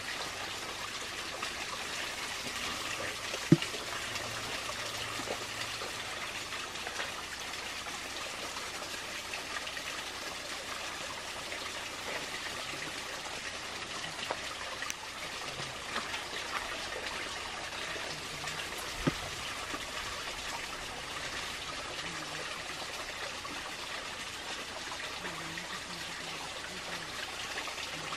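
Steady rushing water with an even hiss, with a sharp knock about three and a half seconds in and another a little past the middle.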